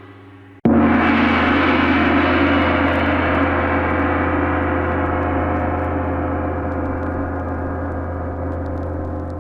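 Chinese gong struck once about half a second in, then ringing on with a long slow fade. Just before the stroke, the tail of the previous stroke is dying away.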